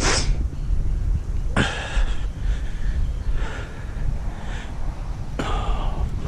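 A cable hoist winching a load of scrap: a steady low rumble with three sharp scraping clanks, one at the start, one about a second and a half in, and one near the end.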